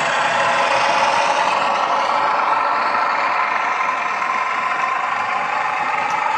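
Sound decoder in a Bachmann Class 42 Warship model playing the diesel-hydraulic locomotive's twin Maybach engines running, through the model's small speaker. The engine note drifts slightly in pitch without stopping.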